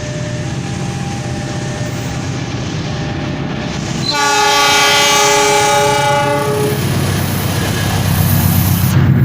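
Diesel locomotive of the Argo Cirebon express train sounding a loud multi-tone horn for about two and a half seconds, starting about four seconds in, over the steady rumble of the approaching train. The rumble grows louder near the end as the train runs through.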